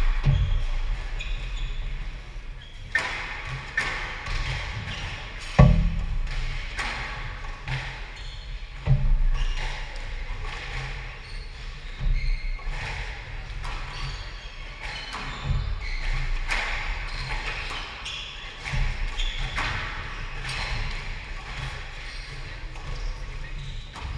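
Squash rally: sharp, echoing cracks of the ball off the rackets and the front and side walls every second or few, the loudest about five and a half seconds in, with shoes squeaking on the wooden court floor between shots.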